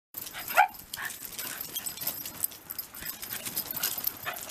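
A Shiba Inu gives one short, loud, falling yelp about half a second in, then light ticks and scuffles as the dogs move about on concrete.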